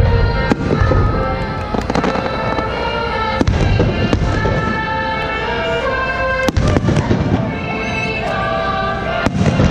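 Aerial firework shells bursting, a string of sharp bangs with the biggest about six and a half seconds in and another near the end, over music with long held notes.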